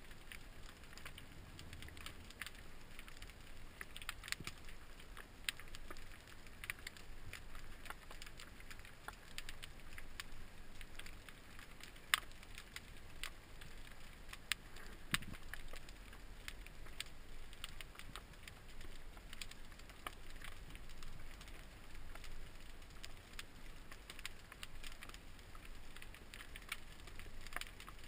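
Underwater crackle: an irregular scatter of sharp clicks, several a second, over a low rumble, picked up through an action camera's waterproof housing.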